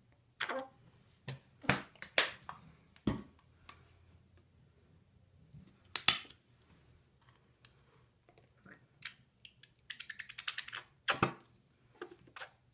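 Shower gel squeezed from a plastic bottle onto crumbled bubble bars in a metal mesh strainer: a string of separate sharp clicks and squelches. About ten seconds in comes a quick run of rapid crackling ticks.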